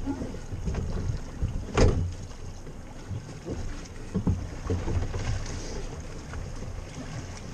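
Wind buffeting the microphone and water sloshing against the hull of a small open fishing boat, with one sharp knock on the boat about two seconds in and a few fainter knocks a little later.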